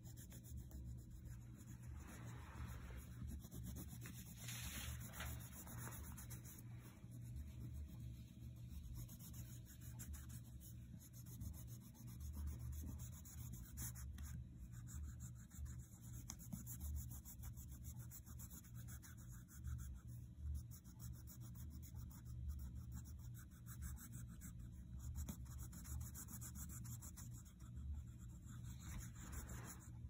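Faint, steady scratching of a wax crayon rubbed back and forth on notebook paper, colouring in an area in quick repeated strokes.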